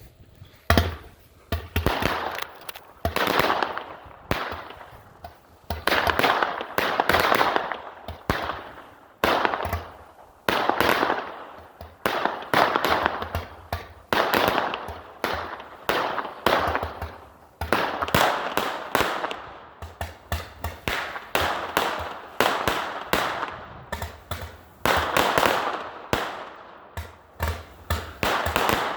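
Fireworks going off in a rapid, irregular string of sharp bangs and crackles, each report trailing off briefly, in clusters with short lulls between them.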